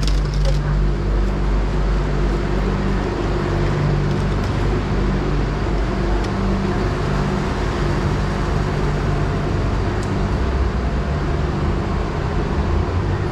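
Airport Rail Link train running: a steady rumble with a low, even hum.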